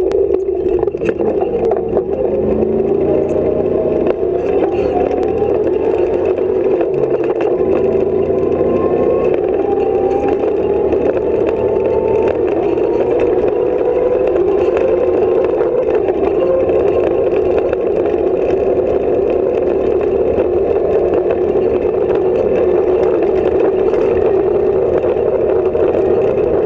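Off-road competition car driving, heard from inside its stripped, roll-caged cabin: the engine runs loud, its pitch climbing through roughly the first ten seconds and then holding steady, with constant rattles and knocks from the bodywork and loose gear.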